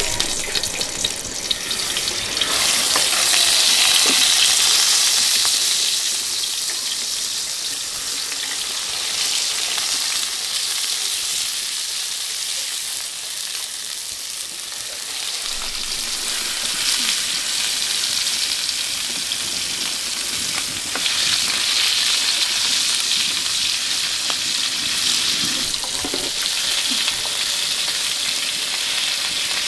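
Pieces of raw fish sizzling and spattering in hot oil in a steel frying pan as they are laid in one by one. The sizzle is a steady high hiss that swells and fades several times.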